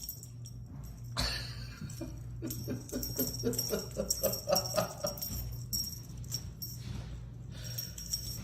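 A small bell on a pet's collar jingling repeatedly as the animal moves. About two to five seconds in, a run of short pitched animal cries joins it.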